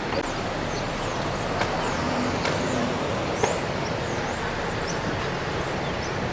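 Steady street noise of passing traffic, with a few faint high chirps and light clicks on top.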